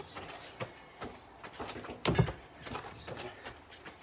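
Box jumps: feet land with one heavy thump on a low platform about two seconds in, with smaller scuffing steps on gravel around it.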